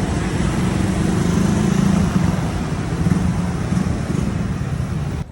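Street traffic: a motor vehicle's engine running close by over a steady wash of road noise. It cuts off suddenly at the very end.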